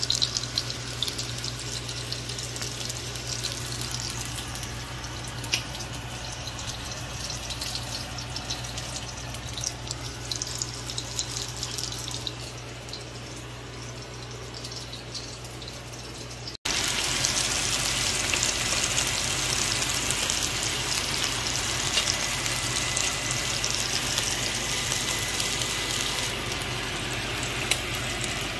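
Food frying in oil in a non-stick pan: first sausages, then diced peppers, onions and potato chunks, giving a steady crackling sizzle over a low hum. The sizzle gets louder after a cut about halfway through.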